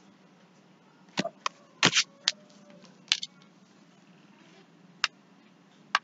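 Computer mouse clicking: a scattered run of short, sharp clicks, some in quick pairs, over a faint steady hum.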